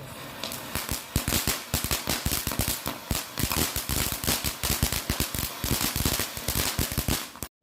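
Firecrackers going off in a rapid, irregular string of sharp bangs, several a second, which cuts off suddenly near the end.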